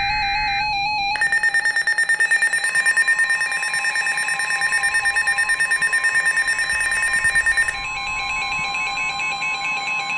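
Weather alert tones: a high alarm beep pulsing rapidly, with the steady warning alarm tone of a NOAA Weather Radio broadcast joining under it about a quarter of the way in. The pulsing stops near the end while the steady tone runs on, signalling a severe thunderstorm warning about to be read.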